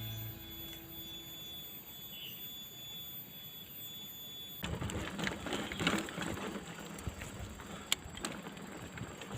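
The tail of background music dies away, leaving a faint steady high tone. After about four and a half seconds an outdoor ambience cuts in abruptly: a crackly hiss with scattered sharp clicks.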